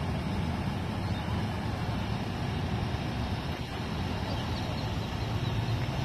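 Heavy-duty pickup truck towing a loaded car-hauler trailer as it moves off slowly: a steady low rumble of engine and rolling wheels.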